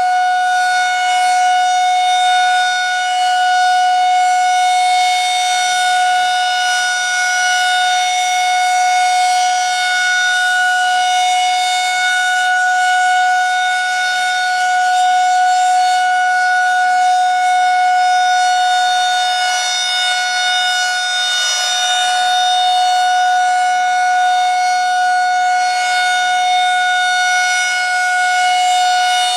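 Federal Signal 2001 SRNB rotating electromechanical outdoor warning siren sounding its steady alert signal: one held, unchanging pitch with a full set of overtones, swelling and easing gently in loudness as the rotating head sweeps past. It sounds healthy.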